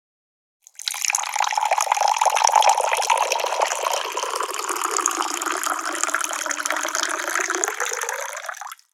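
Running or pouring water: a dense, splashy rush that starts just under a second in, holds for about eight seconds and cuts off abruptly.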